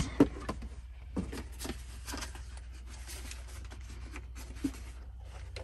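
Handling noise: rustling and light clicks of tools and a plastic bit case being picked up and handled, with one sharp click just after the start. A steady low hum runs underneath.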